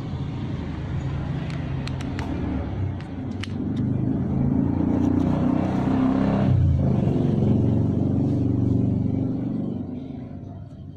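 A motor vehicle engine running, a low rumble that grows louder in the middle and fades near the end, with a few light plastic clicks.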